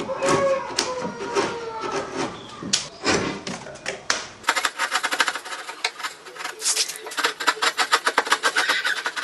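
Hand woodworking tools working on wood: scattered knocks at first, then quick, sharp tapping at several strikes a second from about four and a half seconds in.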